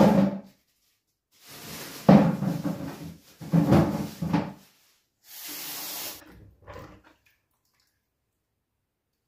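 A plastic bag rustling and courgettes tumbling into a bowl in a kitchen sink in a few dull knocks. This is followed by a kitchen tap turned on, running water for about a second.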